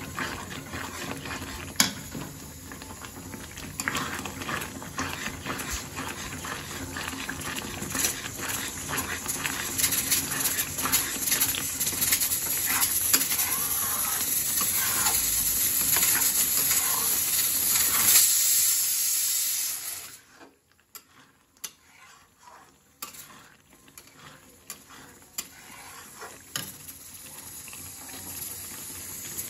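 Thick spinach gravy sizzling and bubbling in a kadhai while a flat metal spatula stirs it, scraping and clicking against the pan. The hiss cuts out abruptly about two-thirds of the way through, leaving only scattered taps, then slowly builds again.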